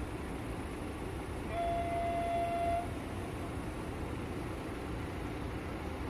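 Train horn sounding a single steady note for just over a second, about a second and a half in, over a constant low rumble.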